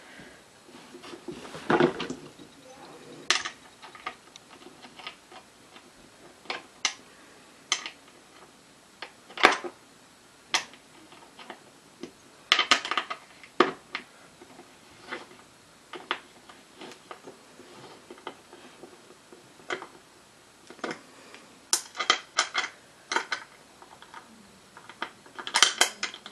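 Irregular metallic clicks and clinks of bolts and hardware being handled and fitted into the metal brackets under an office chair seat during assembly, with a few louder knocks about two seconds in, near the middle and at the very end.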